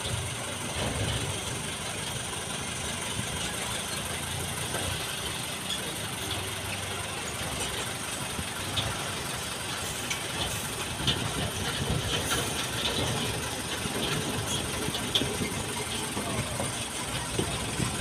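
Diesel truck engines running steadily: a concrete mixer truck's engine working as it discharges, with heavy trucks passing on the road. A few faint clicks sound about midway through.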